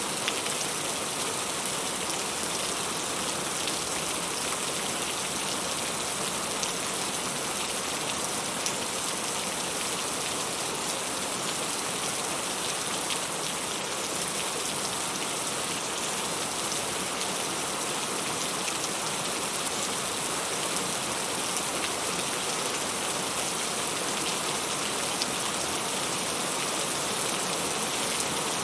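Heavy rain falling steadily, a dense even hiss of drops with fine patter of individual drops hitting a surface.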